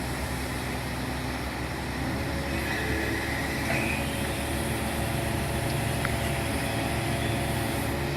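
A crane's engine running steadily as it lowers a steel I-beam, a continuous low drone.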